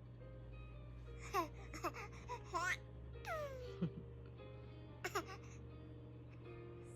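A baby making a string of short, high vocal squeals and breathy huffs, with soft background music and a low hum underneath.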